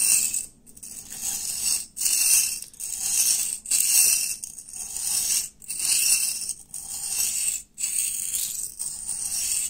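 Knife edge held in a clamped angle guide being stroked back and forth across a wet sharpening stone: a rasping hiss of steel on stone, about one stroke a second with brief pauses between strokes.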